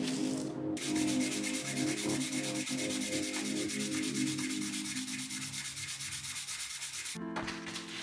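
A small steel knife part made from a nail, rubbed by hand on fine wet sandpaper laid flat: quick, even back-and-forth rasping strokes that start about a second in and stop shortly before the end.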